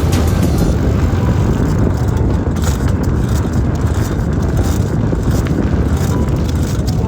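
Steady, loud low rumble of wind buffeting the microphone of a camera mounted on a moving ride along the trail, with faint scattered ticks and rattles over it.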